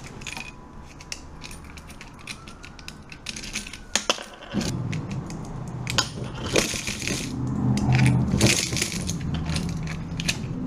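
Quarters clinking as they are slid together on a tabletop and dropped one after another into a clear plastic coin jar already holding coins. A low rumble joins about halfway, under the clinks.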